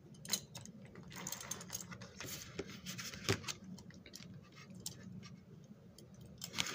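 Faint, irregular small clicks and light rubbing of hands handling a model locomotive's metal chassis, wires and plastic shell, with one sharper click about three seconds in.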